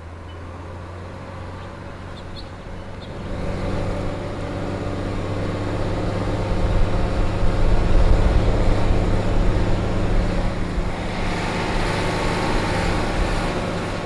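Diesel engine of a Caterpillar construction machine running steadily, growing louder over the first half and then holding at a steady level.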